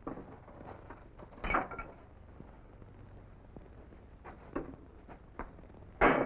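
A few scattered knocks and clunks of things being handled on a wooden table, the clearest about a second and a half in and the loudest right at the end, over a faint low hum.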